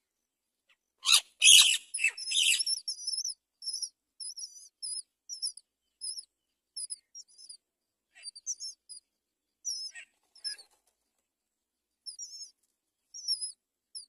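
Nestlings begging: a loud cluster of high, squeaky cheeps about a second in, then short high cheeps repeated every half second or so, with a few brief pauses.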